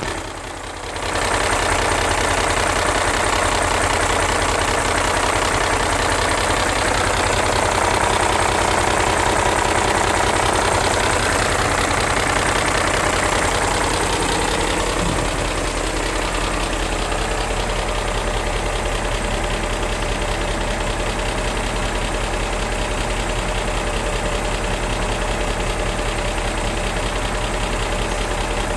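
BMW E39 M5's S62 V8 idling steadily with a ticking noise from bank 1, heard at idle only, which the owner ties to the bank 1 VANOS unit failing its inlet advance test. The running level drops slightly about halfway through.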